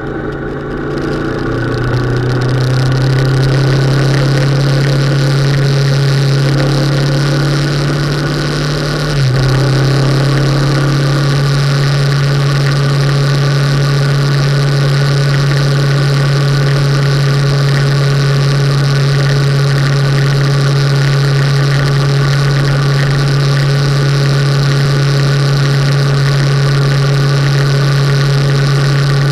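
Motorcycle engine running steadily while riding at road speed, with wind rushing past. The engine note eases off briefly at the start and again about nine seconds in, then picks up again and holds steady.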